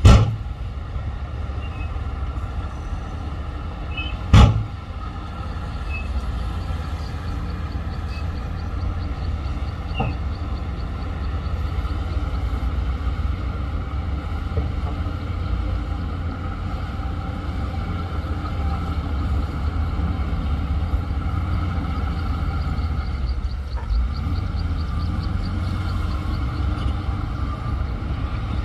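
Shantui DH17C2 bulldozer's diesel engine running steadily under load, with two loud bangs, one at the very start and one about four seconds in, and a fast faint ticking at times.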